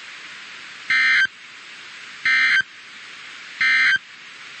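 Emergency Alert System SAME data tones over NOAA Weather Radio: three short, harsh, identical digital bursts about a second and a half apart, the end-of-message code that closes a severe thunderstorm warning. Steady radio hiss runs underneath.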